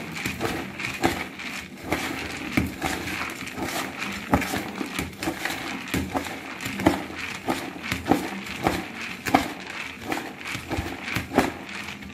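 A spoon stirring a bowl of bhel puri: the puffed rice mixture rustles, and the spoon knocks and scrapes against the bowl at an irregular beat of about one or two strokes a second.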